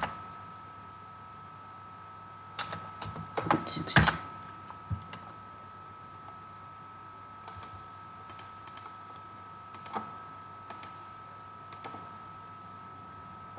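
Computer keyboard and mouse clicks: a short run of keystrokes between about two and a half and four seconds in, then scattered single clicks, with a faint steady high tone underneath.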